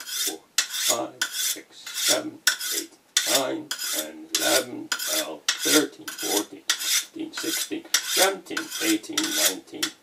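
Silicon carbide sharpening stone stroked dry along a sickle's curved steel blade in quick, even scraping strokes, about three a second. The strokes hone the edge to raise a slight burr.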